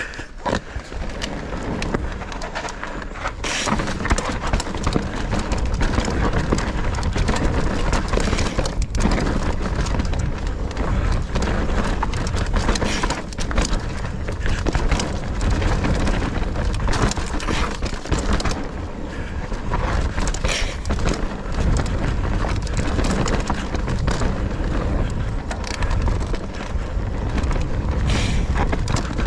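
Nukeproof Mega 290 mountain bike descending a rough, rooty trail at speed: wind buffeting the camera's microphone over the rattle of chain and frame and the knobby tyres on loose dirt, with frequent knocks over roots. It gets louder about three seconds in.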